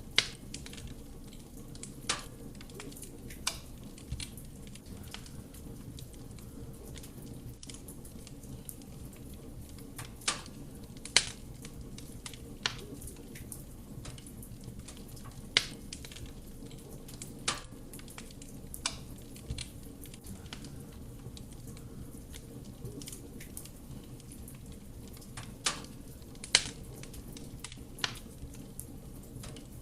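Wood fire burning in a fireplace: a steady low rumble of flame with irregular sharp crackles and pops from the burning logs, about a dozen in half a minute.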